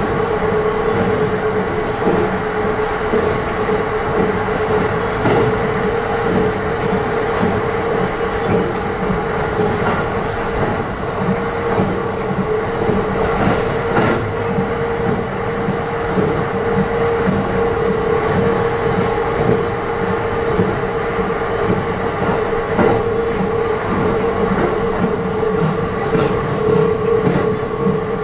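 JR East E531 series electric commuter train running at a steady speed, heard from inside a passenger car: a continuous rumble of wheels on rail with a steady hum, and now and then a wheel click over a rail joint.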